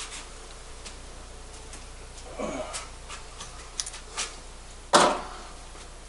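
Handling noises at a workbench while a space heater's thermostat is being worked on: light clicks and rubbing, with one sharp knock about five seconds in.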